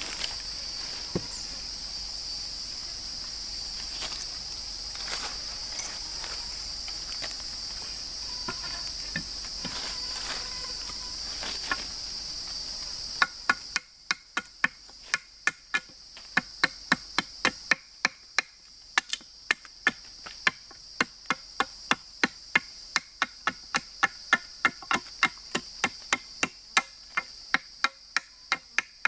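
Steady high-pitched chorus of rainforest insects. About halfway through it gives way to a fast run of sharp knocks, roughly three to four a second, with the insects fainter behind them.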